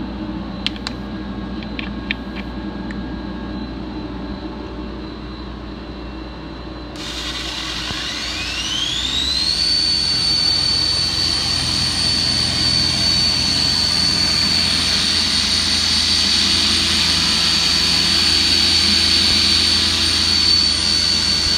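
Milling machine with a drill mill cutter chamfering a bezel on a sheet metal part, running with a steady hum and a few light ticks. About seven seconds in the sound changes: a high whine rises over about two seconds to a steady pitch, louder than before, and holds while the cut goes on.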